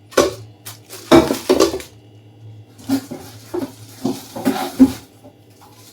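Stainless steel cooking pots clanking and knocking against one another as they are handled and set down: several sharp metallic clanks, the loudest about a second in and again near the end.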